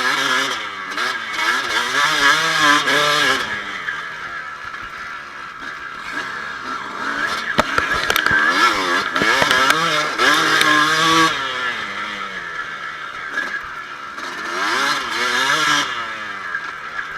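2007 Kawasaki KX250 two-stroke motocross bike being ridden hard, heard from the rider's chest: the engine revs climb and fall over and over as the throttle is opened and shut, with three loud full-throttle stretches and a few sharp knocks near the middle.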